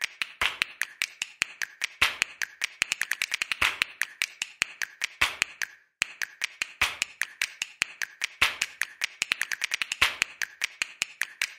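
A rapid run of sharp clicks or snaps, about six or seven a second in an uneven rhythm, with a short pause near the middle.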